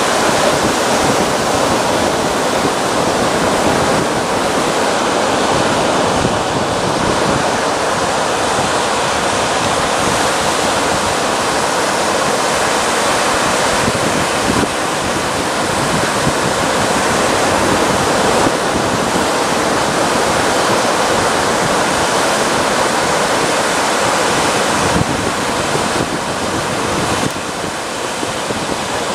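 Sea surf and shallow water washing over a reef flat, a steady rushing hiss that eases slightly near the end.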